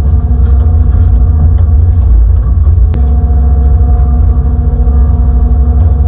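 Hitachi ZX210-6 excavator's four-cylinder diesel engine and hydraulics working while digging, heard from inside the cab: a steady deep rumble, with a higher steady hum joining about halfway through.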